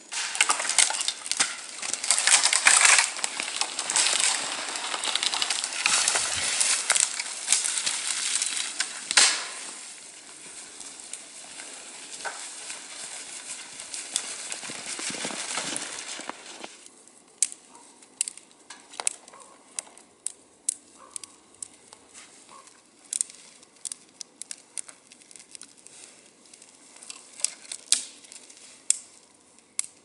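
Branches of a freshly cut sapling rustling and crunching, with footsteps through snow and brush, loud and busy for about sixteen seconds. After that it turns quieter, with scattered sharp snaps and crackles of twigs.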